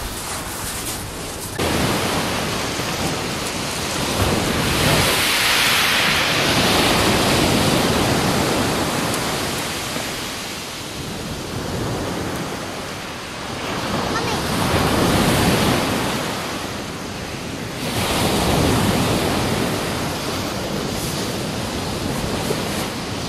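Surf breaking on a shingle beach, a steady rush that swells and fades every few seconds.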